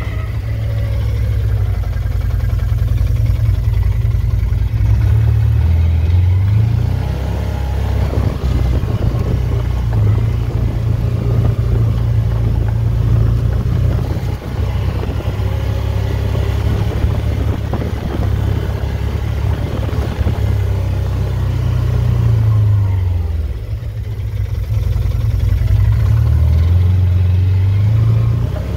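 A motor vehicle's engine running steadily while driving along a dirt trail, its note rising and falling a few times with the throttle.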